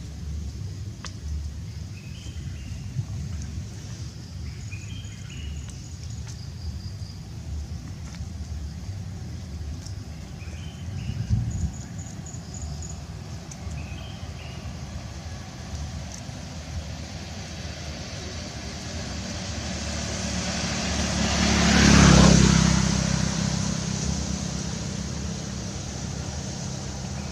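Steady low outdoor rumble with a few faint short chirps. About two-thirds of the way through, a motor vehicle passes by, growing louder, peaking, then fading away.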